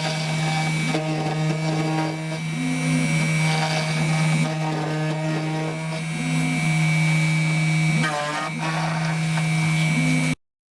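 CNC milling machine running a job: the spindle gives a steady tone while the stepper motors of the axes whine in short tones that shift in pitch as the axes move. The sound cuts off suddenly near the end.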